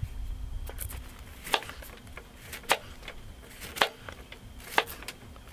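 Kitchen knife slicing a cucumber on a wooden chopping board: sharp knocks as the blade meets the board, about once a second, with a few fainter cuts before them.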